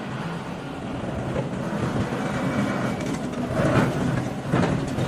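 Steady rumble of forging machinery, with a few hard forging blows on hot iron in the second half.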